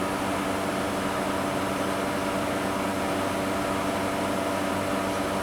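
Steady machinery hum: a constant fan-like whir over a fixed low drone, like running refrigeration equipment, with no change in pitch or level.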